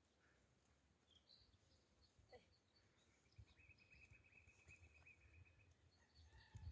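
Near silence: faint outdoor ambience with a few faint bird chirps, and a faint trill lasting a couple of seconds around the middle.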